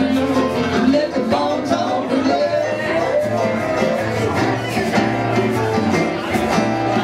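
Live band playing loud amplified music with a steady beat.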